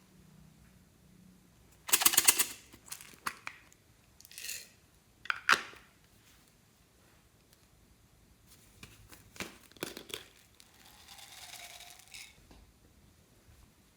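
Slime worked by hand. A loud, rapid crackling burst comes about two seconds in, followed by scattered sharp pops and clicks and a softer squelch near the end.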